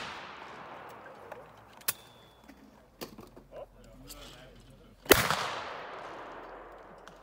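The long echo of a 12-gauge shotgun shot dying away, then about five seconds in a second shotgun shot, sharp and loud, with its report rolling on for a couple of seconds.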